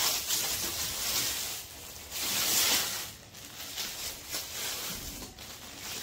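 Thin plastic packaging bag crinkling and rustling as a coffee machine wrapped in it is handled, with the loudest stretch of rustling about two seconds in.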